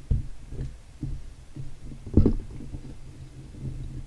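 Low rumbling handling noise with irregular soft thumps, from a handheld camera being moved and gripped. There is one louder knock about two seconds in.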